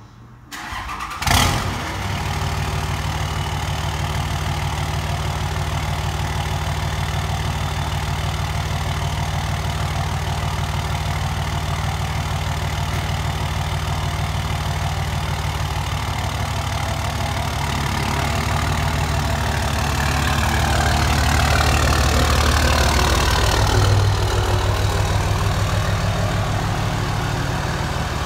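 Cummins 5.9 inline-six turbo diesel starting about a second in, then idling steadily. From about 20 seconds in the engine note rises under light throttle as the truck is backed in, loudest around 24 seconds, then settles back.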